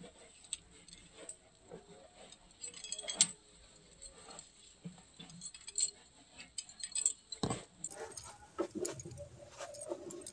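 Bangles clinking and jingling on the wrists of a woman milking a cow by hand, a scatter of small irregular clicks with a couple of sharper ticks.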